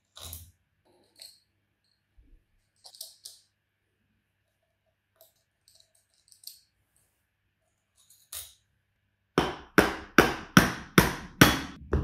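Light metallic clinks of a screwdriver and loose screws. About nine seconds in, a steady run of loud blows starts, two or three a second, each ringing briefly: a nylon-faced mallet knocking on an electric motor's aluminium housing to free the end shield during disassembly.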